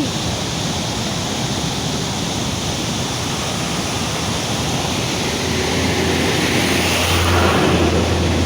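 Floodwater rushing in a loud, steady roar. A low hum joins in past the middle.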